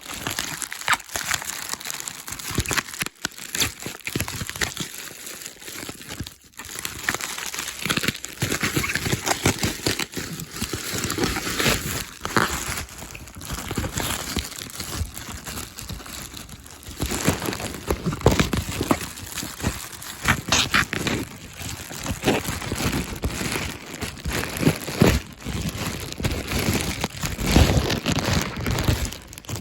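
Plastic bubble wrap crinkling and crackling irregularly as it is pulled off and handled to free an item inside.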